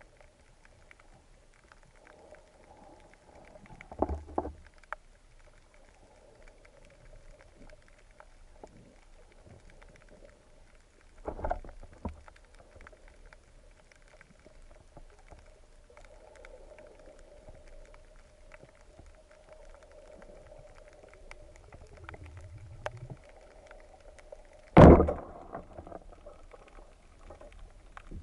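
Band-powered speargun firing underwater: one sharp crack with a short ringing tail about 25 seconds in, the loudest sound here. Two duller knocks come earlier, over a faint steady hum.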